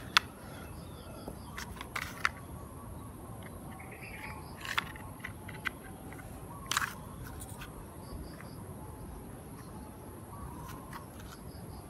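Outdoor ambience of a steady high insect drone with faint bird chirps now and then, and a few scattered clicks and taps of plastic toy tractor parts being handled.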